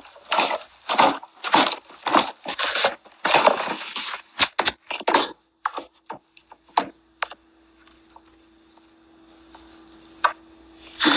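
A phone being handled and carried, its microphone rubbing and knocking against clothing: dense crackling scrapes for about five seconds, then scattered clicks over a faint steady hum.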